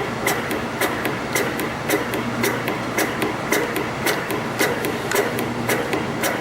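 CNC spring coiling machine forming small conical springs from 0.4 mm wire, running steadily with a sharp click about twice a second, one for each spring cycle, over a continuous machine hum.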